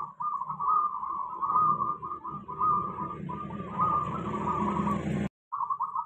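Zebra dove giving its continuous rolling, purring 'bekur' call, which breaks off suddenly about five seconds in. It is the regularly sun-bathed bird, calling readily.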